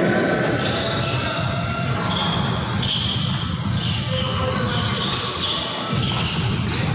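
Basketball play on a hardwood court: sneakers squeaking in short, repeated high chirps, with a ball bouncing on the floor.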